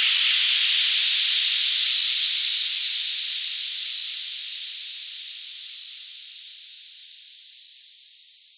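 Wind sweep sound effect: a loud hiss of filtered noise that rises slowly and steadily in pitch and grows louder, like a riser building up.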